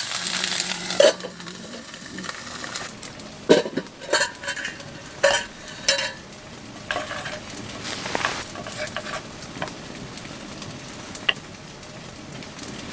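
Utensils clinking and scraping against metal camp cookware, with about half a dozen sharp knocks spread through, over a steady sizzling hiss from food cooking on a small stove.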